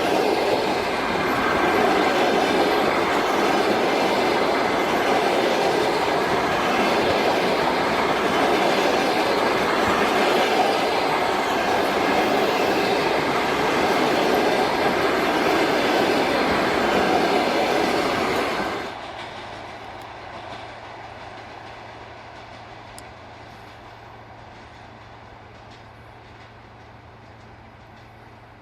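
Passenger train hauled by an EP1 electric locomotive rolling past close by, a loud steady rumble of wheels on the rails. About two-thirds of the way through the sound drops off abruptly, leaving a quiet low hum and a fading rumble.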